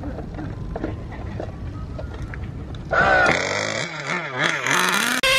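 A radio-controlled car's motor starting up about three seconds in: a quick rising rev that settles into a loud, steady high-pitched whine with a wavering lower note.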